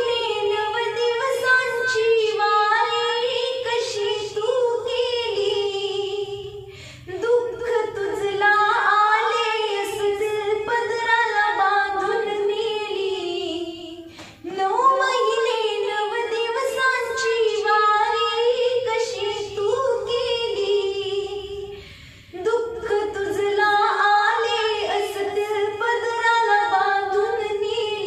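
A woman singing a Marathi song in four long, wavering melodic phrases of about seven seconds each, with short breaths between them.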